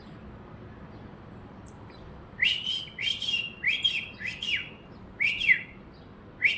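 Parrot giving a run of short, shrill screeching calls in quick succession, beginning about two seconds in.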